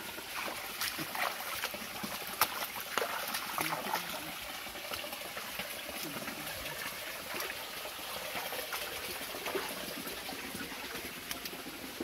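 Shallow forest stream trickling over rocks, with scattered knocks and splashes of footsteps on wet stones, most of them in the first few seconds.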